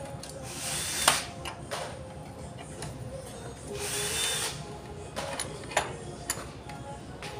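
Hand ratchet working the rear axle nut of an electric scooter: scattered metal clicks, the sharpest about a second in, and two short rasping runs of the ratchet, about one and four seconds in.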